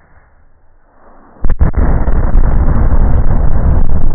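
An explosion goes off about a second and a half in: a sudden loud blast with a second crack just after, then a long rumble with crackling that goes on.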